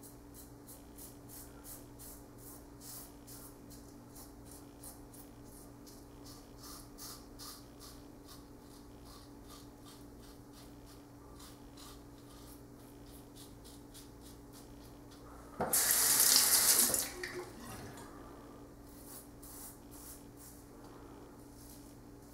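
Double-edge safety razor, a Merkur 34C, scraping through lathered stubble in short, faint, repeated strokes on a third, against-the-grain pass. About two-thirds of the way through, a tap runs loudly for about a second and a half, then the faint strokes resume.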